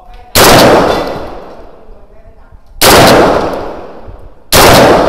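Three single gunshots from a carbine, each followed by a long, echoing tail. The first comes shortly after the start, the second about two and a half seconds later, and the third under two seconds after that.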